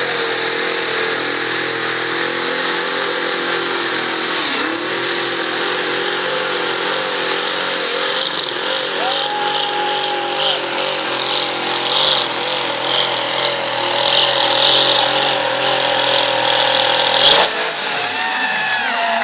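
Modified pulling tractor's engine running hard at high revs as it drags a weight-transfer sled, the pitch wavering as the load changes. Near the end it peaks briefly, then the revs drop away steeply.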